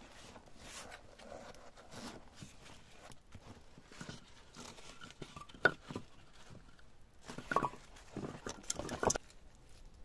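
Firewood logs and a canvas carrier being handled by gloved hands: rustling of canvas and straps with light knocks of wood. There is a sharp knock a little past halfway and a run of knocks and scrapes near the end.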